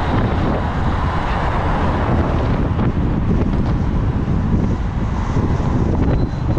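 Wind buffeting the onboard camera's microphone as the bike rides fast through traffic, a loud steady rumble, mixed with a van's engine and tyres running close alongside.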